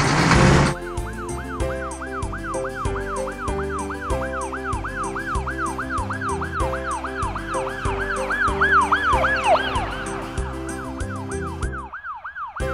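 Cartoon ambulance siren effect: a fast up-and-down wail, about three cycles a second, over background music with a steady beat. It opens with a short, loud burst of noise, and the music drops out briefly near the end.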